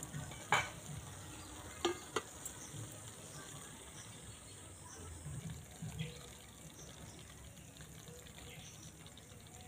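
Three sharp metal clicks of a spatula against a metal karai in the first two seconds, then faint soft sliding and scraping as thick kundri curry is tipped out of the karai onto a plate.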